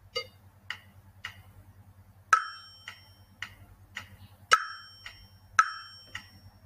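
Recorded rhythm exercise: a steady ticking guide beat, about two clicks a second, with a struck metal triangle ringing out over it three times. The first strike comes a little past two seconds in, and the last two come about a second apart near the end.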